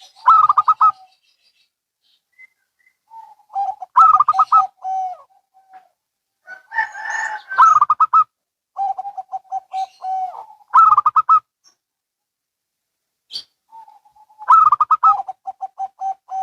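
Zebra doves (perkutut) cooing in turn. About five song bouts, each a quick run of staccato coos alternating between a higher and a lower note, with short silent gaps between the bouts.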